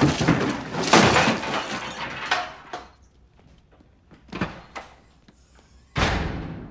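A plastic water-cooler jug is hurled, and things crash and clatter as they are knocked over, fading out over about three seconds. A few small knocks follow, then another sudden loud bang near the end that dies away.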